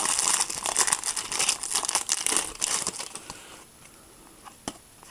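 Foil wrapper of a Topps Match Attax trading-card booster pack crinkling as it is torn open and the cards are pulled out, for about three seconds. Then it goes quieter, with one light tap near the end.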